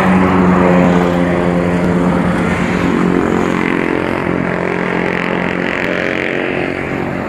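A motor vehicle's engine running with a steady pitched hum over a broad hiss.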